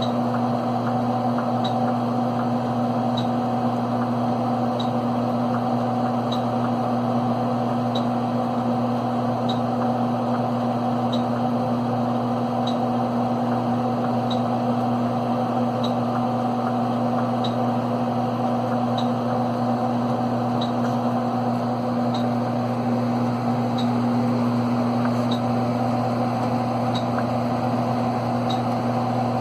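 PDP-12 minicomputer's cooling fans and power supplies running with a steady hum during a tape data test. A faint tick sounds at an even pace, about every one and a half seconds.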